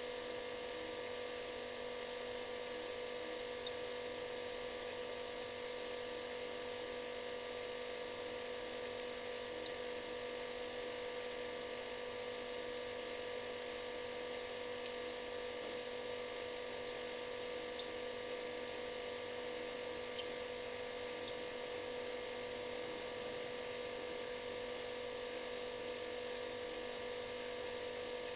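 Refrigerator running with a steady hum: one strong mid-pitched tone and several fainter higher tones over a light hiss, unchanging throughout.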